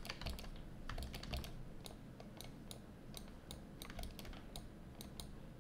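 Faint, irregular clicks of computer keyboard keys.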